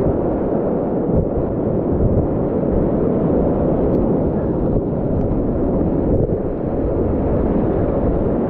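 Whitewater rapids rushing loudly around a kayak paddling through a continuous rapid: a deep, even noise of churning water that does not let up.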